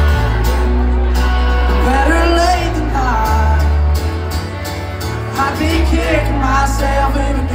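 Live country band playing loud through a club PA: electric and acoustic guitars over a heavy bass line and drum hits, with a voice singing a melody line in phrases.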